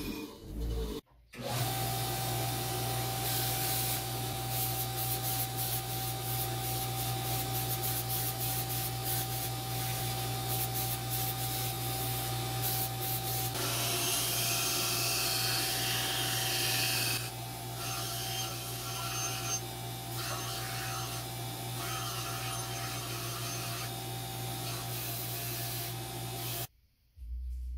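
An electric bench grinder's motor runs steadily while a metal part is pressed against its wire wheel, scraping and brushing rust off. The brushing gets harsher for a few seconds in the middle. The sound cuts off abruptly near the end.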